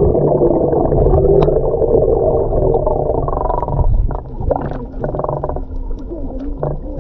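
Muffled water sloshing and rushing around a swimmer's camera, dull, with a few short splashes or knocks about four to five seconds in.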